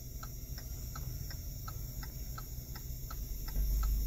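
Car turn-signal relay ticking steadily, about three clicks a second, over the low hum of the Hyundai HB20's engine. Near the end the engine note swells as the clutch is let out and the car starts moving.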